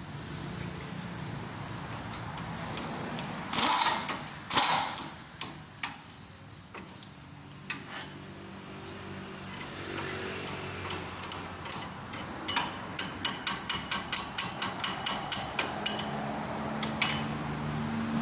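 Hammer striking metal on a Toyota Hilux Tiger's front suspension to knock loose a ball joint that won't come out: two heavy blows about four seconds in, scattered lighter taps, then a quick run of about a dozen evenly spaced strikes near the end.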